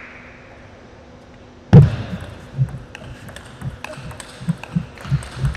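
Table tennis rally: the plastic ball clicks off the rackets and table in quick succession, over low thuds of the players' feet on the floor. The loudest thud comes about two seconds in, as play starts.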